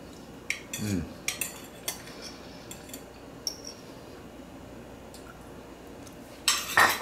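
Eating utensil clinking against a dish as a man takes a bite: light, scattered clicks through the first couple of seconds, a lone one midway, and a louder run of clinks near the end.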